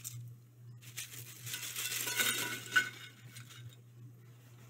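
Crisp fried plantain chips rustling and clinking against each other and the paper towel as they are tossed by hand, most busily in the first half, with a few sharp clicks.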